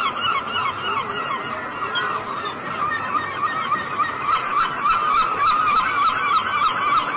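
A flock of gulls calling: many short squawking calls overlapping in a continuous chorus.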